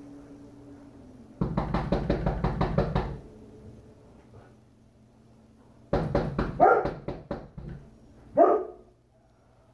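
A fast rattling run of knocks lasting under two seconds, then a dog barking in two short bouts, the second near the end.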